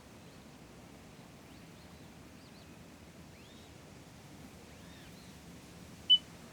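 Faint outdoor background noise with a few faint high chirps, and one short, sharp, high-pitched beep near the end.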